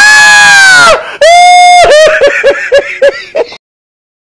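A person's voice screaming loud and high for about a second, then a second held cry that breaks into rapid bursts of laughter. The sound cuts off suddenly.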